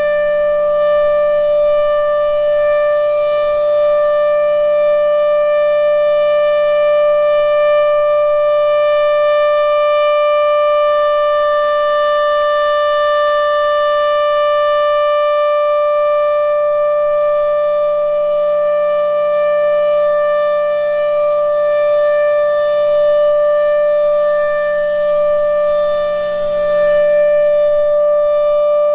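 Federal Signal Thunderbolt 1000 outdoor warning siren sounding a loud, steady tone held at full pitch during a siren test.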